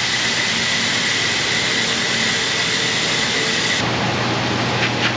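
Steady hiss of a pressurized air or spray jet during a brake job, cutting off about four seconds in and leaving a low steady hum with a few light clicks.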